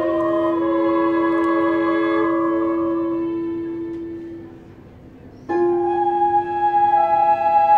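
Chamber ensemble led by flute and clarinet playing long held notes: a sustained chord fades away over about four seconds, and after a brief hush a new chord comes in sharply about five and a half seconds in.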